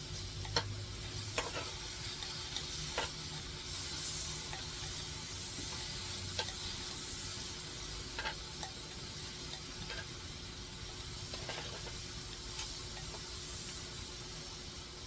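A steady hiss with a faint steady hum underneath, broken by scattered sharp clicks and ticks, most of them in the first few seconds.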